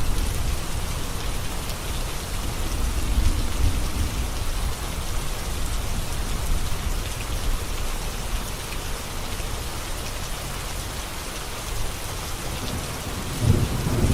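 Heavy rain falling steadily on a road, an even hiss of drops. A low rumble fades out at the start and a short low swell comes near the end.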